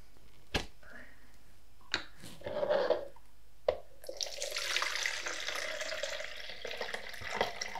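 A few sharp plastic knocks as a film developing tank is handled, then stop bath pouring out of the tank into a plastic measuring jug for about three seconds, starting about four seconds in. The pour ends the stop-bath step of black-and-white film development.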